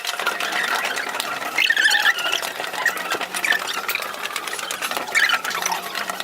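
Footsteps and scuffing of people climbing narrow stone stairs: a dense, irregular run of quick clicks and scuffs, with brief high tones about two seconds in and again just after five.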